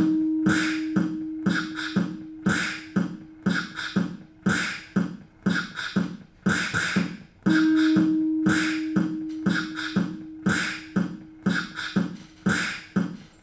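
Playback of a loop assembled from classroom recordings: a quick, steady beat of mouth-made percussion sounds over a long held pitched note, the whole pattern starting over about halfway through.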